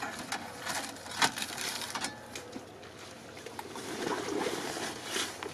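Scattered knocks and clatter of gear being shifted about in a car's boot. About four seconds in, a rougher wet stretch follows, like boots squelching in mud.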